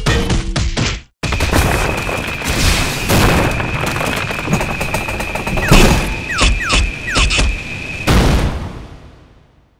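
Cartoon firework rocket firing: a continuous rush of rapid crackling bangs with a steady high whistle, and three short falling whistles near the end. About eight seconds in a boom sounds, then fades away.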